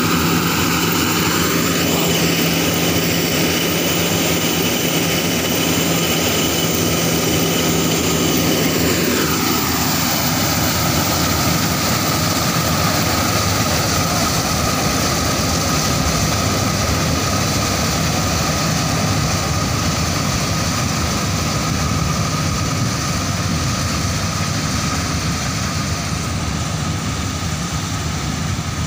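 Preet combine harvester with a maize header running and harvesting: a steady, loud drone of engine and threshing machinery with high whining tones, a little quieter near the end as it moves away.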